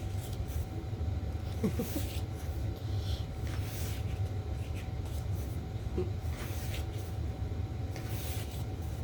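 Steady low background hum with a faint thin tone, and soft paper rustles several times as the pages of a glossy album photo book are turned and handled.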